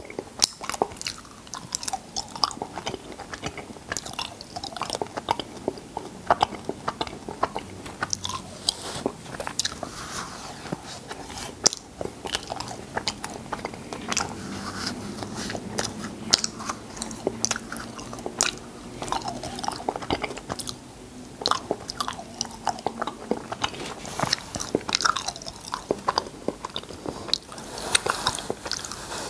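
Close-miked mouth sounds of eating cotton candy: many small wet smacks and clicks of lips and tongue at irregular intervals as the sugar floss melts in the mouth.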